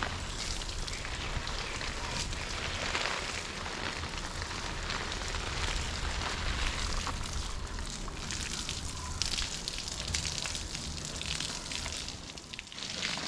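Water spraying from a garden hose and pattering onto leaves and soil like rain, swelling and easing unevenly as the spray moves.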